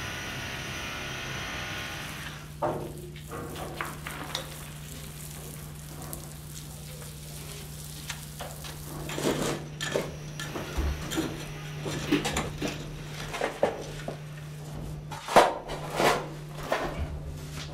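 Excavation work in rubble: a string of irregular clinks and knocks of stone and terracotta being handled and struck, over a steady low hum. It starts a couple of seconds in and gets busier, with the loudest knocks near the end.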